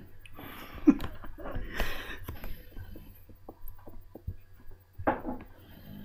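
Great Dane dozing in its bed and breathing noisily, with two long snore-like breaths in the first two seconds and a shorter one about five seconds in, and a sharp click about a second in.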